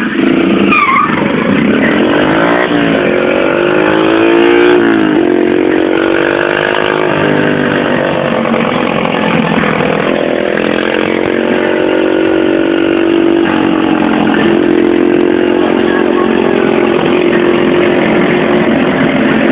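Yamaha XTZ 125 single-cylinder four-stroke engine running loud through a Fortuna Boca 8 aftermarket exhaust, echoing in a tunnel. Its note climbs for a few seconds, then drops and holds fairly steady with several step-downs in pitch.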